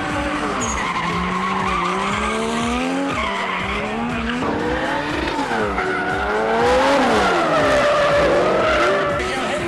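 Drift cars' engines revving up and down as the cars slide sideways, with the tyres squealing and skidding on the asphalt. The revs climb and drop repeatedly and are loudest about seven seconds in.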